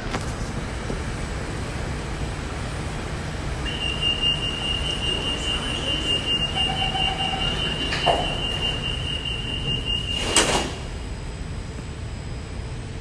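Door-closing warning tone on a Kawasaki-CSR Sifang CT251 metro train, a high steady tone held for about seven seconds over the hum of the train at the platform. It ends with the sliding doors and platform screen doors banging shut about ten seconds in.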